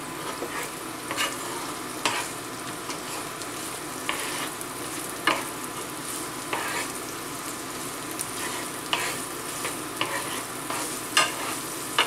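Food sizzling steadily in a hot pan, with a utensil scraping and knocking against the pan every second or two as it is stirred.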